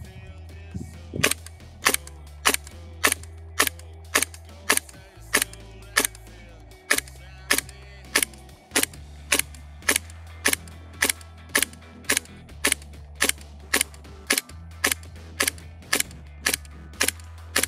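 GHK Steyr AUG gas blowback airsoft rifle firing single shots in steady succession, about two a second, from about a second in. It is working through one gas magazine to test how many shots the gas lasts. Background music with low sustained notes plays underneath.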